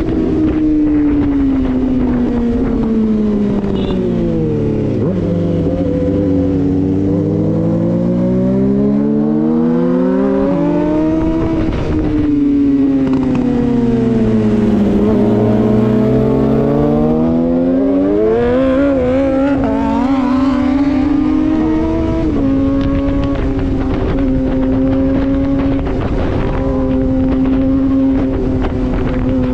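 Suzuki GSX-R inline-four engine heard from the rider's position, its pitch falling and rising twice as the bike slows and accelerates, then holding a steady note while cruising for the last several seconds.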